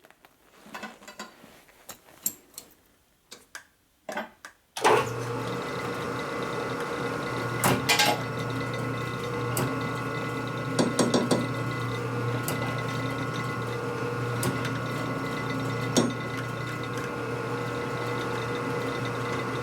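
Light metal clicks and knocks of parts being handled, then about five seconds in a shop machine's electric motor starts suddenly and runs steadily with a constant hum, with a few sharp metal clicks over it.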